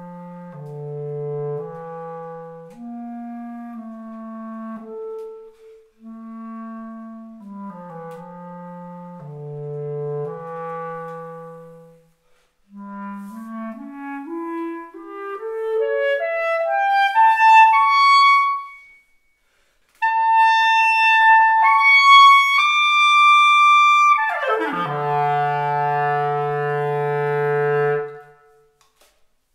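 Solo clarinet playing: low phrases, then a fast rising run up to high held notes, then a quick drop to a long low final note that closes the piece about a second before the end.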